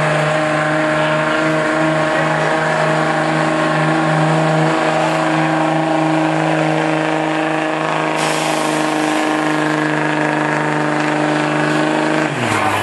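Diesel pickup engine running flat out at a steady high rpm under the load of a pull, then dropping sharply in revs near the end as the driver lets off.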